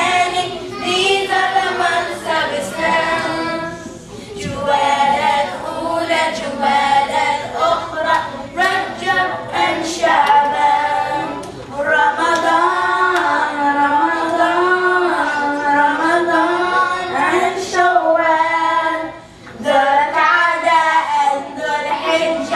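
A group of children singing together unaccompanied, in long phrases with short breaks between them.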